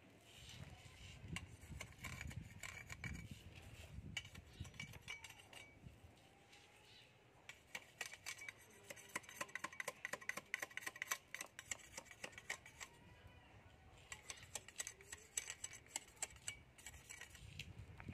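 Hand work on a bamboo fishing rod: rapid light clicks and scraping taps that come in two thick runs in the middle and toward the end.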